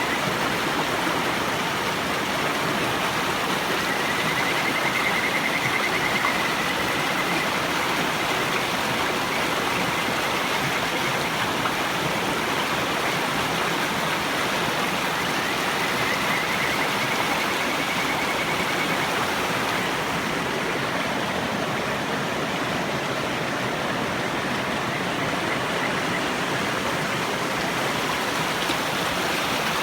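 River water rushing steadily, with Kajika frogs (Buergeria buergeri) faintly calling over it: a few high, trilling whistles, the longest about four seconds in and again about sixteen seconds in.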